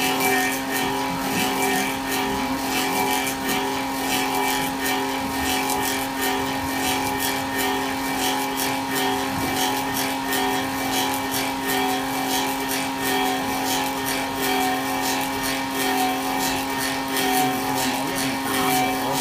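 Wooden-clog copy lathe running, a steady machine hum with a fast chatter of its cutters shaving a wooden clog blank, copying the outside shape of the clog from a pattern.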